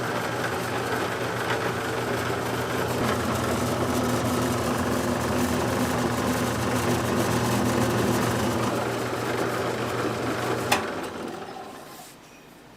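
A kitchen machine's motor running steadily with a constant low hum and mechanical rattle, then switched off with a click near the end, after which it winds down.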